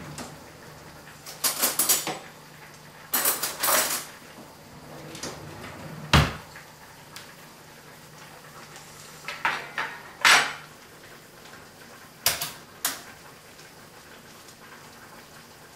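Kitchen clatter: a drawer being worked and metal utensils, pots and pans handled and set down in about five short bursts, with a single sharp knock about six seconds in.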